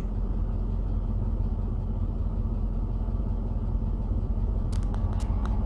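Jeep Grand Cherokee WJ's 4.7-litre V8 idling with a steady low rumble. A few light clicks come near the end.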